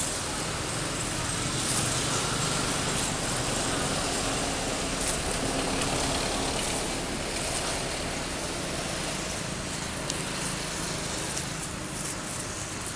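Steady outdoor background noise of road traffic, a continuous hiss with a faint low engine hum that comes and goes.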